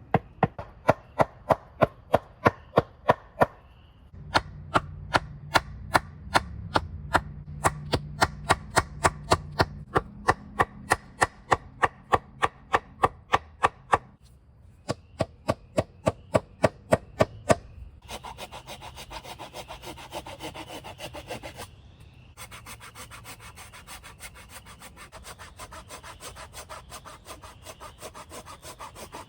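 Hand saw cutting through a log in steady back-and-forth strokes, about three a second, with a couple of brief pauses. Later the strokes turn softer and quicker.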